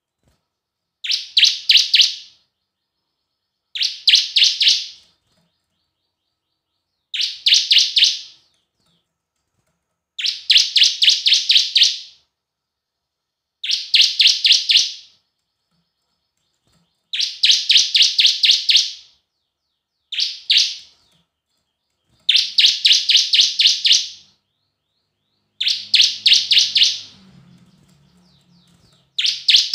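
Bar-winged prinia (ciblek) singing: about nine short, loud phrases, each a quick run of sharp, high notes lasting a second or two, repeated after short pauses.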